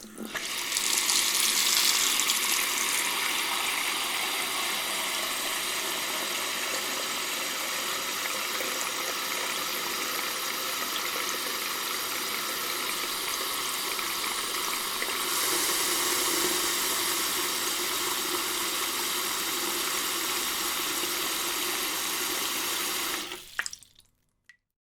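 Water tap running full into a sink basin, the stream splashing and filling the bowl steadily. The tap is shut off about a second before the end, followed by a last drip.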